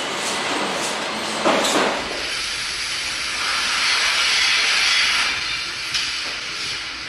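Machinery noise on a motorcycle engine assembly line. The first part is a clattering din with a louder knock about one and a half seconds in. After that comes a steady hiss that swells and eases, with one click near the end.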